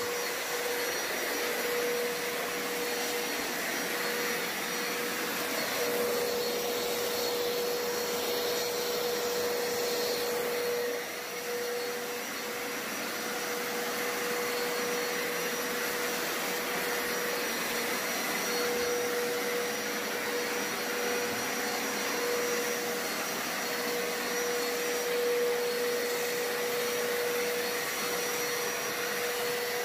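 Hoover Power Scrub Deluxe carpet cleaner running on a hard floor with its hard-floor scrubber tool: a steady loud motor drone with a constant tone through it, and the brushes scrubbing the floor. It dips briefly about eleven seconds in.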